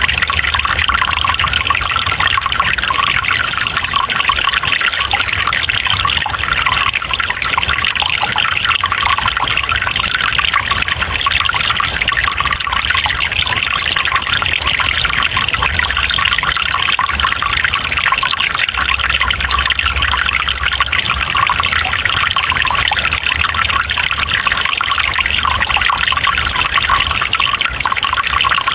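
Running water trickling and splashing steadily, as in a small forest stream.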